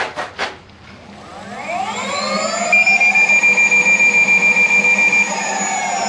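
Veteran Sherman electric unicycle's hub motor spinning the wheel free in the air in a spin test, checking that the newly fitted tire runs true. After a few clicks, its whine rises in pitch from about a second in, holds steady, then begins to fall near the end. While the wheel holds speed, a high tone pulses quickly over the whine.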